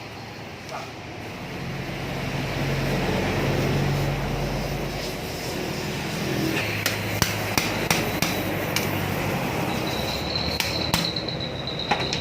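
An electric water pump motor hums steadily, building up over the first few seconds. From about halfway, irregular sharp metallic knocks join it.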